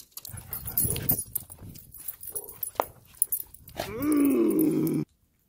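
Scuffling and clicking as dogs jump about, then about four seconds in a dog lets out one loud whining cry that rises and falls over about a second and cuts off suddenly.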